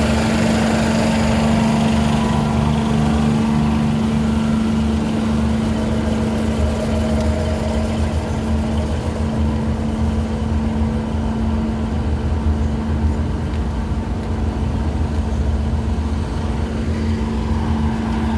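Diesel railcar set idling at a standstill: its underfloor engines give off a steady, unchanging hum.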